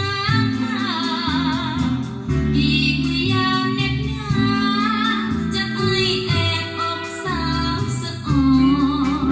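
A song played through an Adcom GFA-555 power amplifier: a woman singing with vibrato over bass and guitar.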